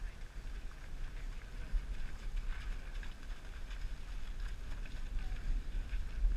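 Steady low wind rumble on the microphone of a camera worn by a rider on a walking horse, with a few faint knocks of hoofbeats and tack.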